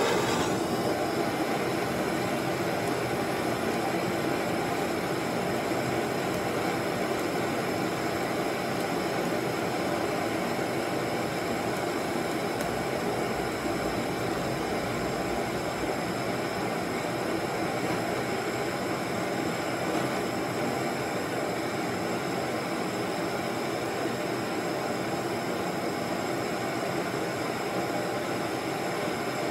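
Handheld gas torch burning with a steady hiss.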